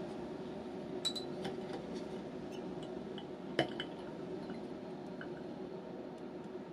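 A few light clicks and clinks of a plastic syringe with stopcock and cannula being set into a glass Erlenmeyer flask, the sharpest about three and a half seconds in, over a steady background hum.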